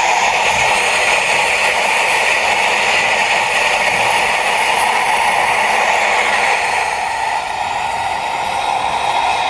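A train running past on the rails: a steady, loud rolling noise that dips slightly about seven seconds in.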